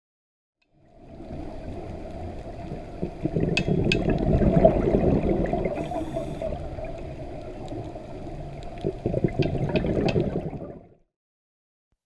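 Water bubbling and gurgling, starting about a second in, loudest around four seconds in, with a few sharp clicks, then fading out near the end.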